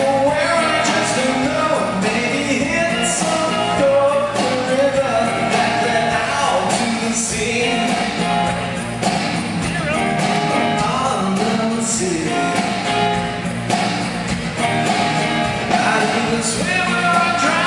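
Live pop-rock band playing through a concert PA, with a lead singer over guitar, keyboards and drums at a steady loud level.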